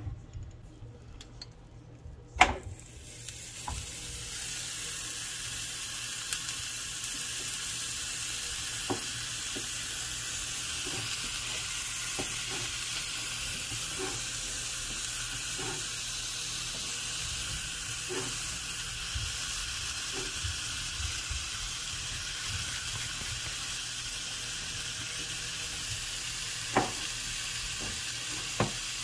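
A 40-ounce ribeye searing on a hot ridged stovetop grill pan. A sharp knock about two seconds in, then the sizzling builds over a second or two and holds steady, with a few faint pops.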